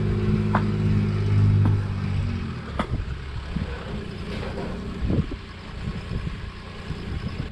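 A vehicle engine running steadily, then shutting off about two seconds in. After it, a few light knocks and clatter of metal camp gear being handled.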